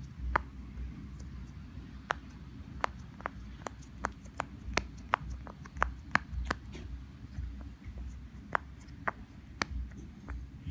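Bubbles of a silicone pop-it fidget toy being pressed down with the fingers, each one giving a short sharp pop. The pops come at an irregular pace, thickest in the middle of the stretch with a few more near the end, over a low handling rumble.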